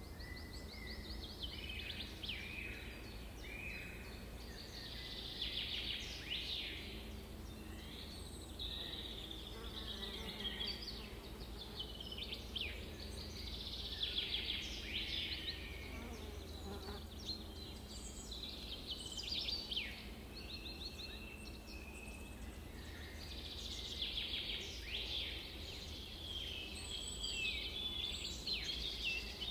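Nature-ambience sound effect of buzzing insects, bee-like, with dense high chirps and rapid trills throughout, over a faint steady low hum.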